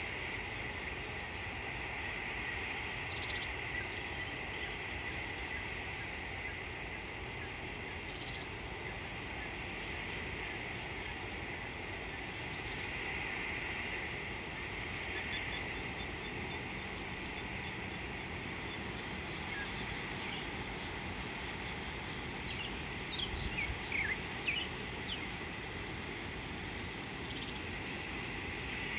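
Steady chorus of insects, a continuous high-pitched drone with a lower, fainter band that swells and fades, over a steady low background rumble. A few short chirps break in about three quarters of the way through.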